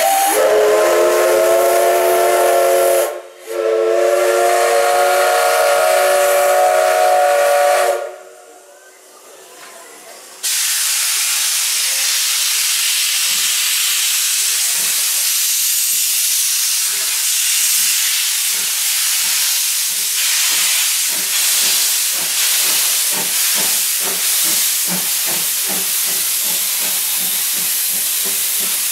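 Double-headed steam locomotives C11 325 and C12 66 starting a train. A chime-like steam whistle blows twice, a short blast and then a longer one. A few seconds later loud hissing steam sets in, with exhaust chuffs that start about one a second and quicken as the train gets under way.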